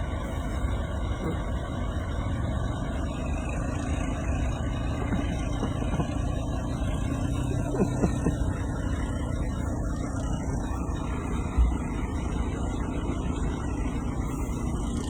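Steady low rumble of a running motor vehicle, with a few light clicks about halfway and a single dull thump later on.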